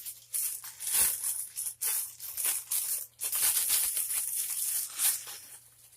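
Crinkly squishy-toy packaging rustling and crinkling in irregular bursts as a squishy is pushed back into it.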